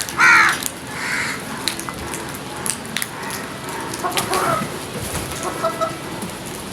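Crows cawing: a loud harsh caw right at the start and a fainter one about a second in. Softer bird calls follow around four and five and a half seconds in, over scattered light clicks.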